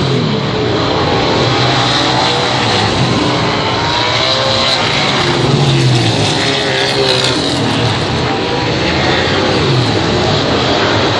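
Race car engines revving during a race, several overlapping engine notes rising and falling in pitch as the cars speed up and ease off.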